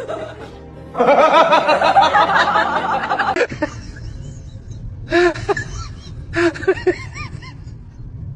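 A burst of laughter lasting about two and a half seconds, then a few short high-pitched vocal squeaks a little later.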